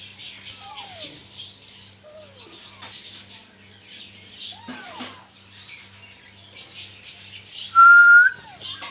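Alexandrine parakeet chicks calling: repeated short falling chirps over a dense, high chatter of many birds. A loud, held whistle comes about eight seconds in, with a steady low hum underneath throughout.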